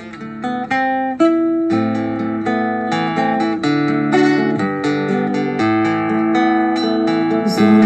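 An instrumental backing track of plucked acoustic guitar playing through the Kimiso QS-4006 portable Bluetooth karaoke speaker, notes picked several times a second.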